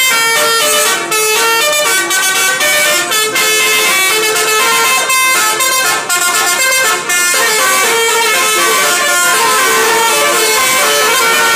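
Bus 'telolet' multi-tone horn playing a rapid tune of changing notes, loud and continuous, with a few short breaks between phrases.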